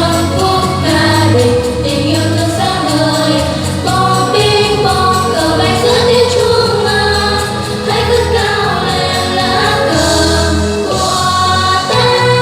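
A vocal group singing a song in chorus with musical accompaniment.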